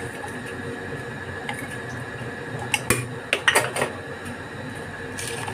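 A small plastic spoon clicking and tapping against a plastic tub of salt in a short run of sharp knocks about three seconds in, over a steady faint background hum.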